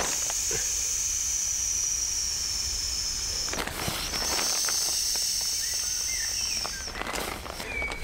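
Air hissing out of the open valve of a self-inflating sleeping pad as it is rolled up and pressed flat. Two long hisses with a short break a little after the middle, with the rustle of the pad between them and near the end.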